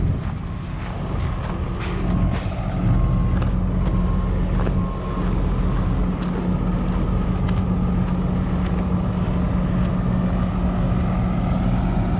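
Hino 338 truck's 260-horsepower diesel engine idling steadily.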